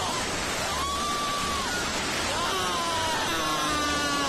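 A hillside landslide bringing down houses: a steady, loud rushing noise of sliding earth and debris, with people shouting and crying out in long, drawn-out calls over it.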